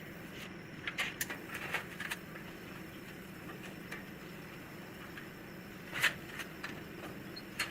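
Workshop sounds: a steady low machine hum with scattered sharp clicks and knocks, the loudest about six seconds in.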